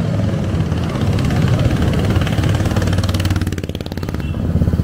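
Motorcycles riding past close by, engines running steadily; the sound dips a little after three seconds in and rises again near the end as more bikes come up.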